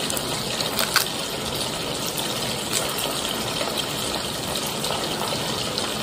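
Steady hissing noise with a light tap about a second in.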